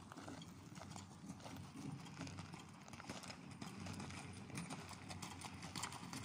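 A carriage horse's hooves clip-clopping at a walk on a gravelly dirt track, getting louder as the horse-drawn carriage approaches.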